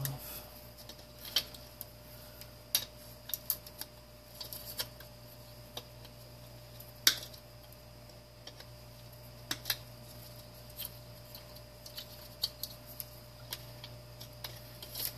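Irregular sharp clicks and taps of plastic and metal parts being handled and pried apart as a space heater's oscillation motor is taken out, the loudest click about 7 seconds in, over a steady low hum.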